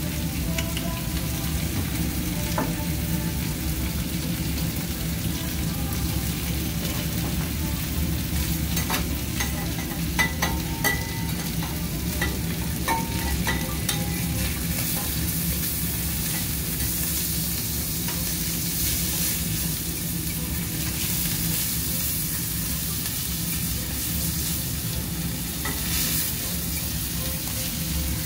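Kobe beef steak pieces sizzling steadily on a steel teppanyaki griddle. A few sharp metallic clinks, with brief ringing, of the chef's knife and spatulas against each other and the griddle come about a third of the way through.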